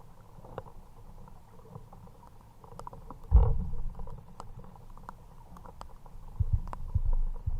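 Scattered raindrops ticking on a kayak. A heavy low thump comes about three seconds in, and several more low knocks come near the end, as of gear or a fish being handled in the kayak.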